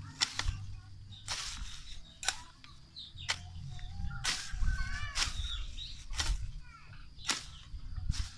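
Long-handled hoe chopping through weeds and into soil, one swishing, scraping stroke about every second.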